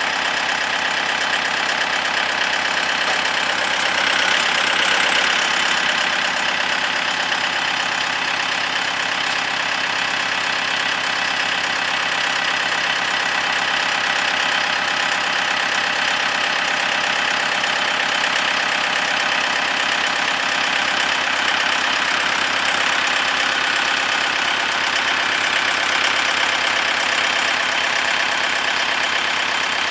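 A diesel engine running steadily, a little louder about four to six seconds in.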